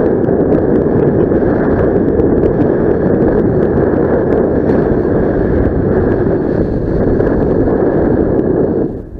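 Loud, steady wind rushing over the microphone during a paragliding flight, with a brief dip about nine seconds in.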